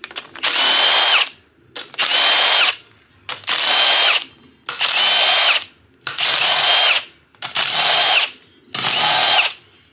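Milwaukee M12 Stubby cordless impact wrench run in seven short bursts of about a second each, driving cylinder head bolts. Each burst spins up, holds and winds down.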